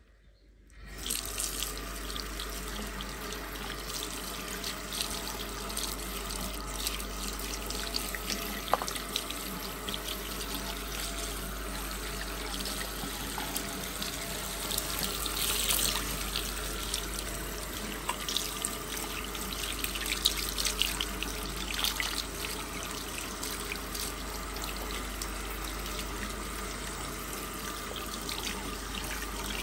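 Bathroom washbasin tap turned on about a second in, then running steadily, the stream splashing into the sink over hands and a wet kitten being washed, with a few small splashes.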